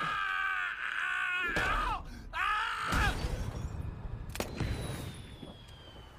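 Cartoon screaming: a long, high, wavering yell, then a second shorter falling scream, followed by a heavy thud and, about four seconds in, a sharp crash as a character slams down onto a car roof. A faint high ring slowly falls away after the crash.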